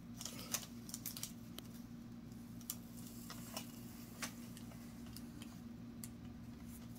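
Faint, irregular small clicks and taps as hands handle a squeeze bottle of thick CA glue and light balsa parts on a paper-covered bench, over a steady low hum.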